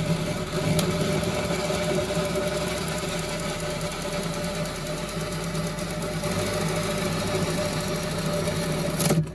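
A handheld power tool running steadily as it cuts through a thin plywood cabinet panel, then cutting off suddenly near the end.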